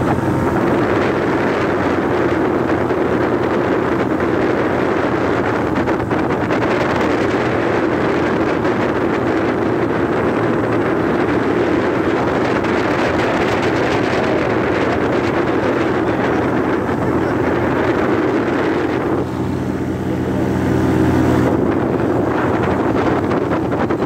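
Paramotor engine and propeller running steadily at cruise, with heavy wind buffeting on the microphone. About 19 seconds in, the wind noise eases for a couple of seconds and the engine's drone stands out more clearly.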